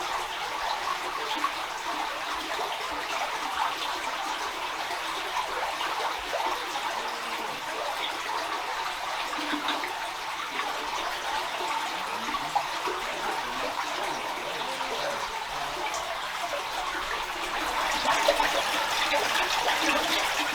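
Spring water trickling and splashing down a rock bank: a steady running-water sound that gets a little louder near the end.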